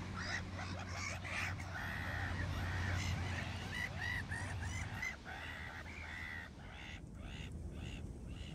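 A colony of black-headed gulls calling: many short, harsh calls overlapping, thinning out near the end. A low steady hum lies underneath for the first half.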